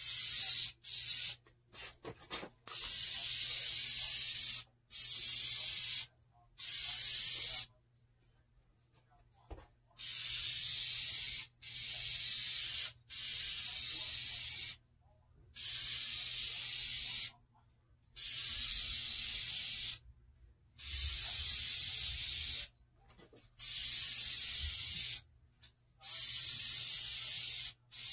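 Aerosol can of vinyl and fabric paint spraying in repeated bursts of hiss, each one to two seconds long with short pauses between, about a dozen in all, with one longer pause about eight seconds in.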